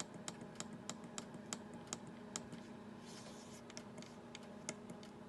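Push buttons on an Edison deck oven's control panel clicking as they are pressed over and over, about two or three presses a second, to step the temperature setting. A faint steady low hum runs underneath.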